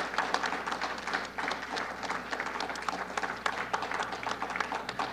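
Applause: many people clapping their hands.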